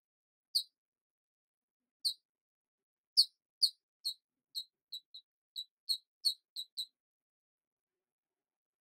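A series of about a dozen short, high-pitched squeaks, spaced out at first, then coming quickly from about three seconds in and stopping near seven seconds.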